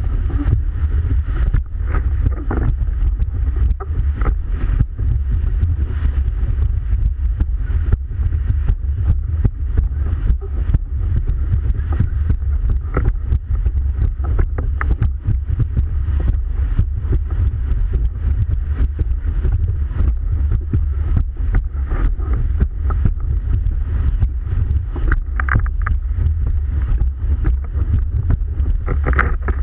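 Wind buffeting the microphone as a loud, steady rumble, with many short hits of water against a windsurf board sailing at speed.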